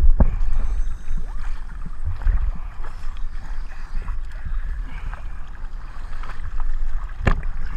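Choppy sea water sloshing and splashing around a camera held at the surface, with a low rumbling buffet and small splashes from paddling hands. A sharp knock or slap comes about seven seconds in.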